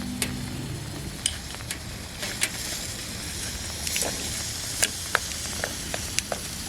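Food sizzling in a hot pan: a steady hiss with scattered sharp pops and crackles.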